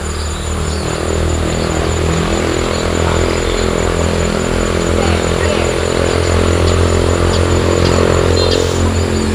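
A small engine running steadily, a little louder after the first second, with faint short high chirps over it.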